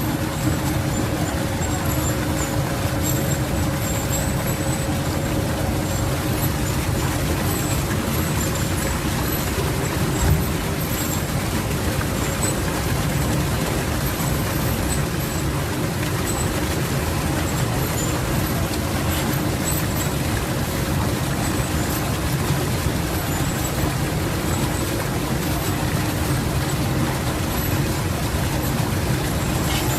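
Waterfall: a steady, unbroken rush of falling water, strongest in the low range, with faint high-pitched chirps scattered over it.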